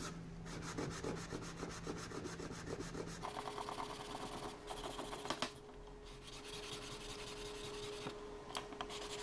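Sandpaper rubbed by hand over the faces and edges of a glued wooden clock counterweight, in quick back-and-forth strokes with a brief pause a little past the middle. It is clean-up sanding that takes off glue squeeze-out and smooths overhanging edges.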